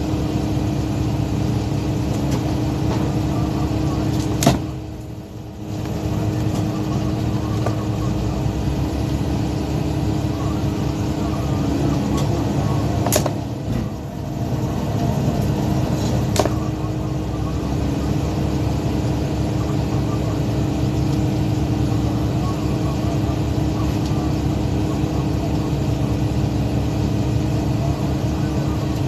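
Fishing boat's engine running steadily with a constant drone, broken by three sharp knocks; the drone dips briefly twice, just after the first two knocks.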